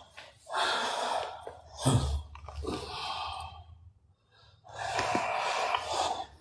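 A man breathing heavily, about four long, noisy breaths or gasps close to the microphone, with a short pause just past the middle.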